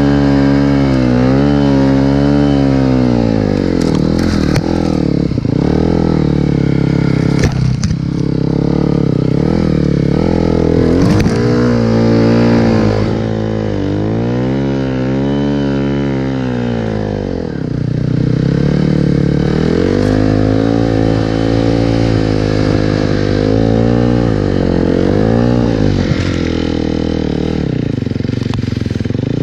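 Engine of a snow vehicle ridden through deep snow, its pitch rising and falling again and again as the throttle is worked, with a brief drop in revs a little past halfway.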